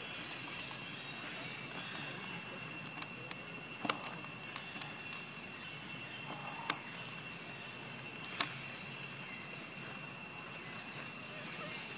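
Steady high-pitched drone of insects, two even tones held without a break, with a few sharp clicks scattered through it, the loudest about eight seconds in.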